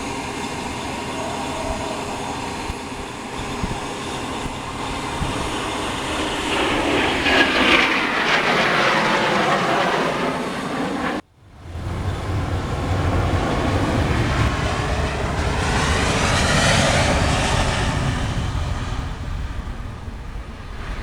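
Aircraft flying past at an air display, two loud passes of engine noise that swell and fade with a sweeping, phasing sound, the first loudest about eight seconds in and the second about seventeen seconds in, with a sudden break between them.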